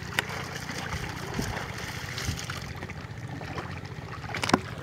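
Water trickling and splashing as a wet cast net is hauled in through shallow water, over a steady low hum. A sharp click comes just after the start, and a louder one near the end.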